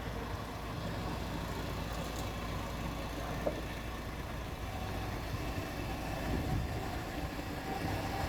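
A motor vehicle's engine running steadily at low revs, its sound low and even.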